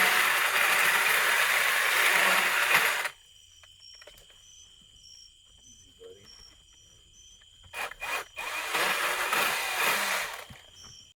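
Battery-powered Milwaukee pole saw cutting wood in two runs: about three seconds of cutting, a pause, a couple of sharp clicks, then about two more seconds of cutting. Its chain, nicked on high-tensile wire, runs with a chattery sound.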